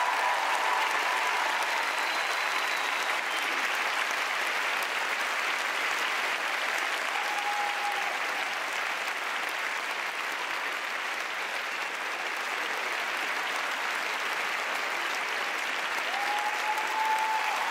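Large arena audience applauding steadily. A brief held tone rises above the clapping about eight seconds in and again near the end.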